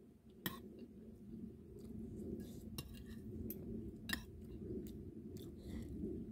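Metal spoon and fork clinking and scraping against a ceramic plate of fried rice, with several sharp clinks, over a steady low rumble in the background.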